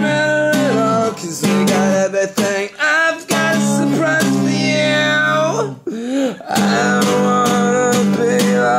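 Acoustic guitar strummed in a steady rhythm, with a voice singing held notes that slide in pitch near the middle.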